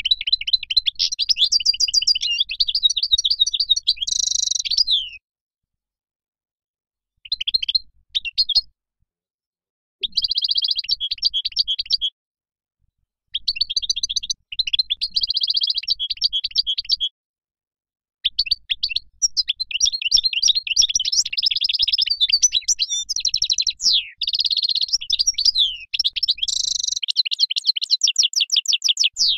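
European goldfinch singing: five bursts of rapid, twittering song separated by short silences, the last and longest lasting about eleven seconds.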